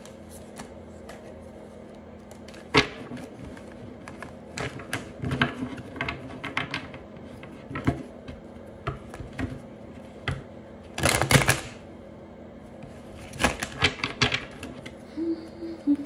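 Tarot cards being shuffled and handled: scattered light clicks and quick rustling flutters of card stock, with a denser flurry about eleven seconds in and another a couple of seconds later.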